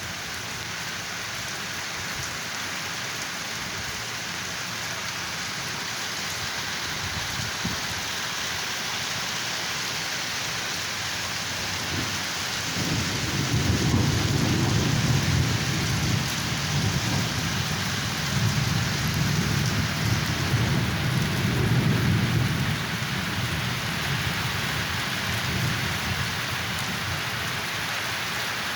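Steady rain falling, with a long low roll of thunder rumbling in about twelve seconds in and dying away some ten seconds later.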